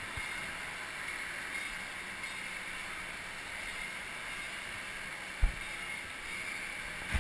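Steady ambient din of an indoor water park, an even rushing hiss, with one sharp thump about five and a half seconds in.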